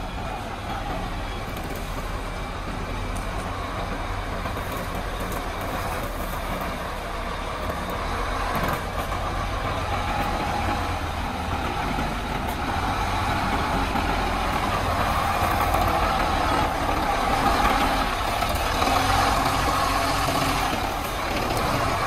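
Sinotruk HOWO concrete mixer trucks driving past one after another, their diesel engines running. The sound grows steadily louder as the trucks come up and pass close by.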